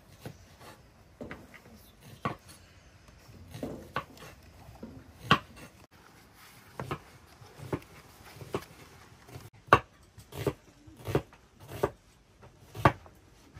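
Food being chopped with a knife on a wooden board: a series of single sharp knocks about once a second, coming a little faster near the end.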